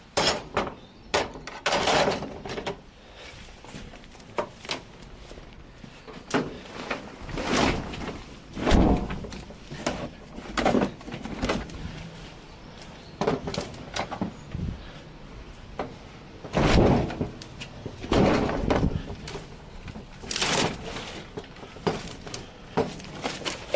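Irregular thuds, knocks and crackling, a second or two apart, as cut hedge branches are handled and crammed into a van.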